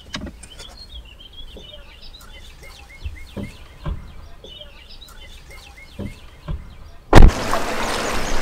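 Birds chirping faintly outside an open car door, with a few soft knocks and bumps as someone gets out of the car. About seven seconds in, a sudden loud burst gives way to a steady rush of outdoor noise.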